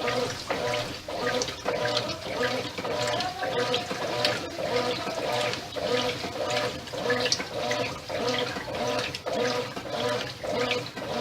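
Brastemp 8 kg top-loading washing machine agitating: the agitator swishes the wash water back and forth at about two strokes a second, with a motor hum on each stroke.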